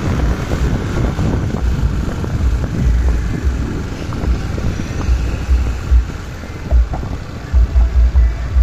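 Wind buffeting the microphone over the noise of a moving vehicle, the low gusts getting stronger near the end.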